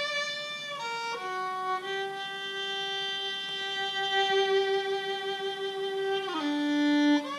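Solo violin playing a slow melody: a few short steps down, one long held note with a slight waver, then a dip to a lower note near the end and back up.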